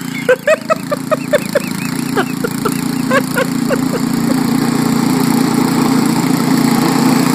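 1978 Ariens snowblower's engine running steadily under load while throwing snow, growing a little louder towards the end. In the first few seconds, a quick run of about a dozen short high-pitched chirps sounds over it.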